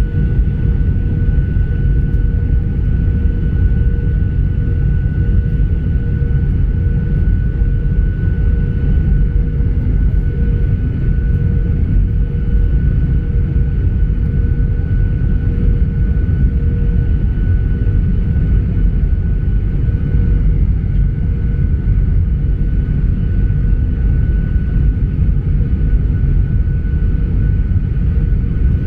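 Steady cabin noise of a Boeing 737-800 with CFM56-7B engines: a loud low rumble with an even whine from the engines.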